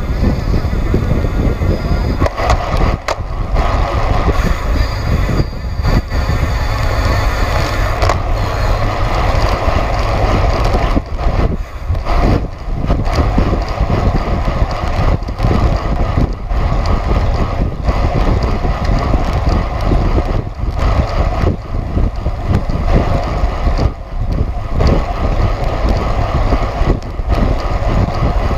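Wind rushing over the microphone of a camera riding with a road bike at racing speed, with the rolling noise of bicycle tyres on asphalt. The sound is loud and steady, with brief dips.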